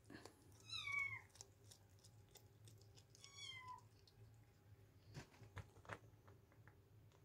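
Newborn kitten mewing twice, two short, high, thin cries that drop in pitch at the end. A few faint clicks follow.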